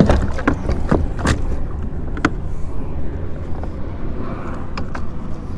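Fishing kayak under way on the water: a steady low rumble with scattered sharp knocks and clicks, most of them in the first couple of seconds, as hands and gear move against the plastic hull.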